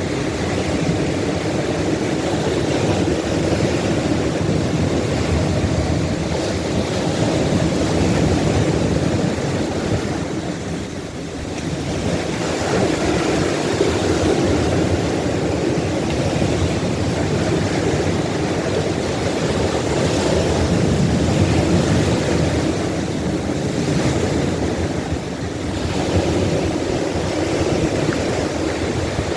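Ocean surf breaking on a beach, a continuous rushing wash that swells and eases, with a brief lull about eleven seconds in.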